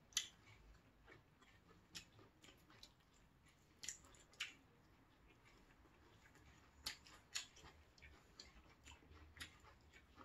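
Quiet eating sounds: scattered sharp crunches and clicks from chewing whole dried capelin, eaten bones and all, and from chopsticks handling the fish and air-fried potato slices, the loudest a few near four and seven seconds in.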